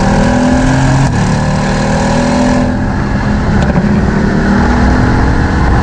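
The 2018 Mercedes-AMG GT R's twin-turbo V8 accelerating hard under load, its pitch climbing slowly and steadily.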